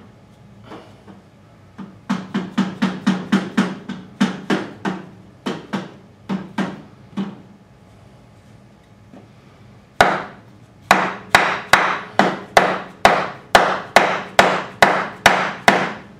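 Rubber-faced dead blow hammer striking a block of wood to drive a tight-fitting exhaust gasket into a motorcycle exhaust port. First comes a run of light, quick taps, then after a pause a run of harder strikes at about two or three a second.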